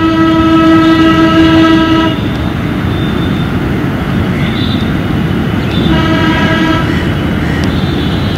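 A horn sounds twice: a long blast of about two and a half seconds, then a shorter one about six seconds in. Both play over a steady rumbling background noise.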